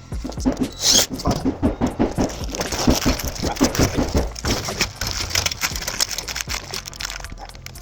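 Sheet-metal vent duct pipe being handled and fitted together: a fast, irregular run of metallic knocks and rattles that eases off near the end.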